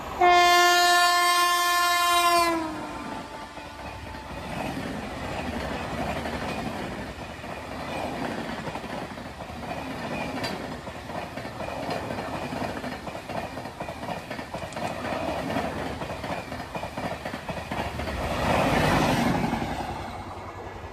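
Indian Railways WAP7 electric locomotive sounding one long horn blast as it passes at speed; the pitch drops slightly as it goes by. Then the coaches rumble and clatter over the rail joints, swelling shortly before the end before fading as the train runs away.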